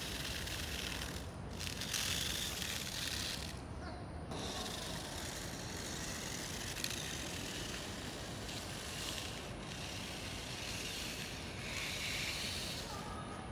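Twin 130-size Mabuchi electric motors and plastic gears of a 1/32 Tamiya mini 4WD RC car whirring as it drives, swelling and dropping back in stretches of a second or two as the throttle comes on and off.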